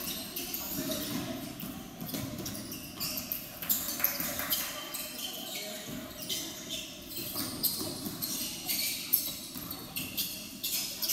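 Live basketball game in a large gym: a basketball bouncing on the hardwood floor amid the shuffle of play, with players' and coaches' voices calling out, echoing in the hall.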